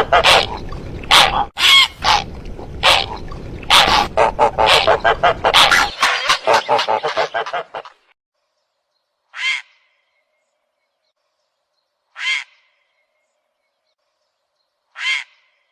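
Recorded bird calls from a hunting lure recording of zarki and heron calls: a rapid string of repeated calls for about the first eight seconds, then three single calls roughly three seconds apart.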